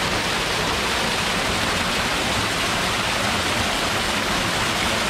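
Small waterfall pouring over rocks into a pool: a steady, even rush of falling and splashing water.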